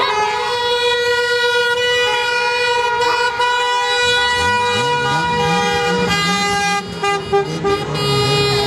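Several car horns held down and sounding together at different pitches, in celebratory honking by passing cars after a football victory.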